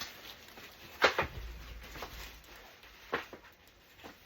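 Cardboard box and packaging being handled while a playard is unboxed: a few sharp knocks and rustles, the loudest about a second in and another about three seconds in.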